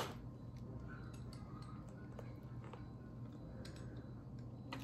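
Faint handling sounds from a stainless-steel meat injector being worked into a raw brisket: a few soft scattered clicks over a low steady hum.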